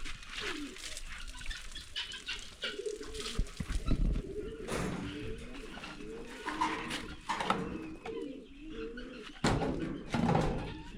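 Birds cooing again and again, low wavering calls, with scattered clicks and a loud scraping or rustling noise about nine and a half seconds in.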